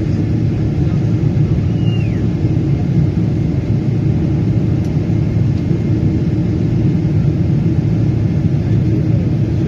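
Steady low rumble of jet engines and rushing air heard inside an airliner's cabin in flight.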